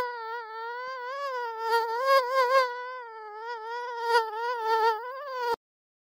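Mosquito whining in flight: a high, buzzing wingbeat tone that wavers up and down in pitch and loudness, then cuts off suddenly about five and a half seconds in.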